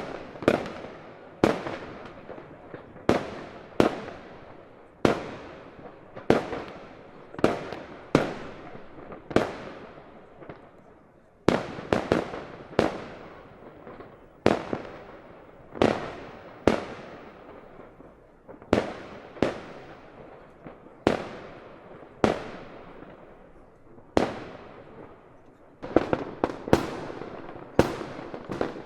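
Fireworks going off in a steady series, a sharp bang about every second, each followed by a long fading echo. There is a brief lull about ten seconds in and a quicker cluster of bangs near the end.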